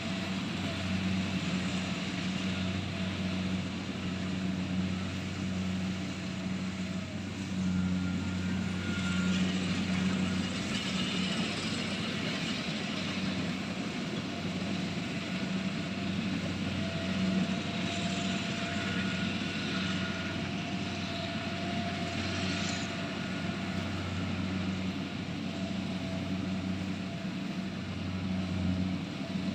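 Engine of a rice harvesting machine running steadily, a constant low hum with a few faint higher tones coming and going.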